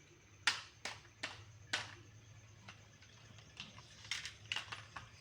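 Small plastic toys being handled: about ten light clicks and taps at uneven intervals, the sharpest in the first two seconds, over a faint steady hum.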